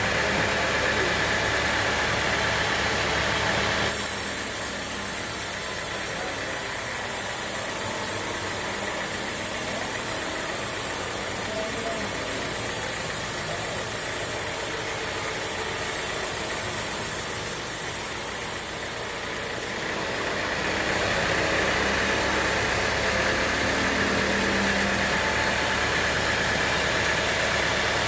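Sawmill machinery running steadily, turning hissier from about four seconds in until about twenty seconds in.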